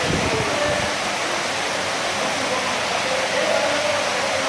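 Automatic carpet washing machine running: a steady rush of water spray and machinery noise, with a brief low rumble in the first second.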